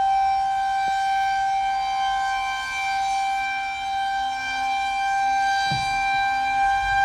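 Rotating outdoor tornado warning siren sounding a steady wail: one held tone, very loud, its loudness swelling and fading gently as the siren head turns.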